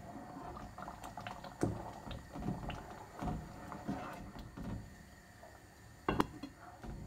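Wooden spoon stirring wet semolina halva in a pan after the milk-and-sugar syrup has gone in, with irregular soft scrapes and knocks. About six seconds in, a glass pan lid is set on with a sharp clatter.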